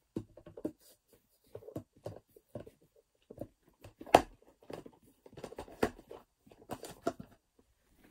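Handling noise: the recording phone rubbing and bumping against clothing as it is moved, an uneven run of rustles and soft knocks, loudest about four seconds in and again just before six seconds.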